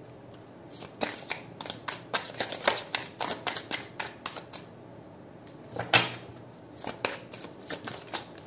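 A deck of tarot cards being shuffled by hand: a quick run of clicks for about three and a half seconds, then one louder snap about six seconds in and a few more clicks near the end.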